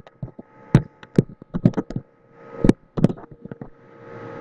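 Computer keyboard and mouse clicking: a dozen or so sharp, irregular taps as a line of code is selected, copied and pasted, over a faint steady electrical hum.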